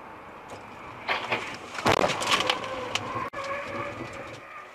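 Highway car collision recorded by a dashcam inside a following car: over steady road noise, a series of bangs and crunching clatter starts about a second in and is loudest near two seconds, followed by a steady whine for about a second.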